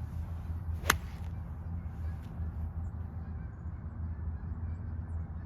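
A golf club strikes a ball once, a single sharp crack about a second in, over a steady low rumble.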